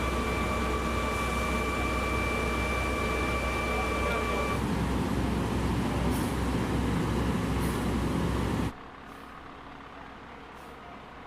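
Heavy vehicle engines running with a deep steady rumble, with a steady high whine over them that stops about four and a half seconds in. About nine seconds in the sound drops abruptly to a much quieter background with a few faint ticks.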